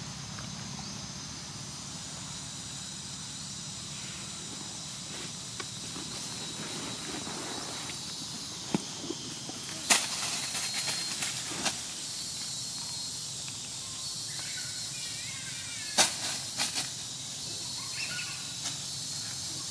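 Steady outdoor forest hiss with a faint high hum, broken by a few sharp clicks, the loudest two about ten and sixteen seconds in.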